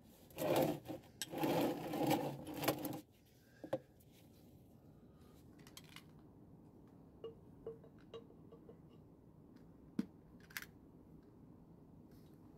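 A burst of rustling and handling noise for the first few seconds, then a few small, light clicks and taps from hands working among the vacuum lines and connectors in a Mercedes W123 diesel's engine bay.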